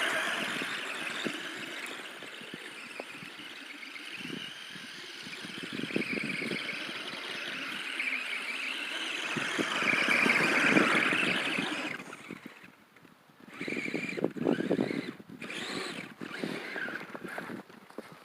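RC crawler truck's electric motor and gears whining as it drives through snow, swelling and easing with the throttle and stopping about twelve seconds in, followed by short stop-start bursts.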